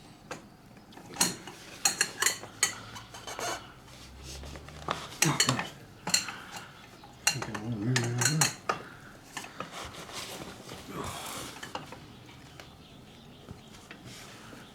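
Metal hand tools clinking and clanking in irregular knocks as a socket and breaker bar are fitted and worked onto the motorcycle's bottom shock bolt.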